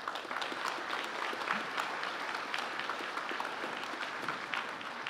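Audience applause: many hands clapping in a dense, steady patter that starts suddenly.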